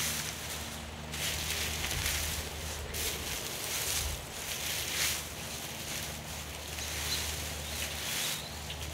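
Dry straw mulch rustling in irregular bursts as potatoes are dug out of it by hand, over a faint low steady hum.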